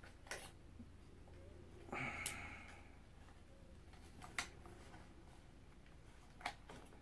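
A few faint, sharp plastic clicks from a small drone being handled as its battery and connector are fitted, about one every two seconds, with a short breath about two seconds in.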